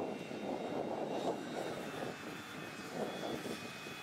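An aircraft engine droning steadily, with a faint high whine over it.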